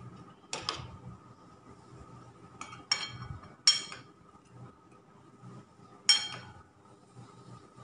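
A metal spoon clinking against a metal baking tray while cookie dough is shaped: several sharp clinks that ring briefly, the loudest about four and six seconds in, over a faint steady hum.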